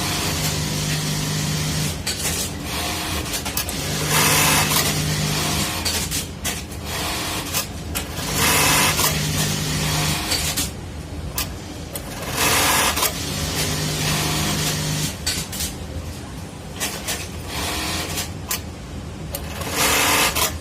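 Electronic button-stitch industrial sewing machine (1903-type) running repeated sewing cycles: about every four seconds a steady motor hum of a second or two alternates with a louder burst of stitching.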